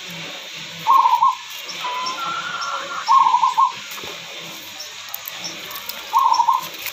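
Sick hen's rattling, snore-like breathing (ngorok), heard three times as a short wheezy croak on a breath every two to three seconds. In chickens this snoring goes with a respiratory illness and fever.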